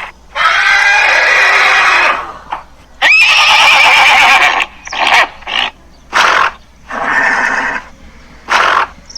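Horse neighing: two long whinnies, each about a second and a half, followed by several shorter calls over the last four seconds.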